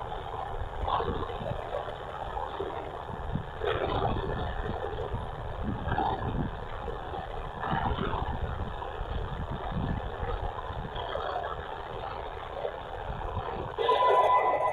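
Unidentified VHF-band interference coming out of a Malachite DSP receiver: a rumbling, hissing noise that surges irregularly every couple of seconds. Near the end it grows louder, and a steady tone comes in.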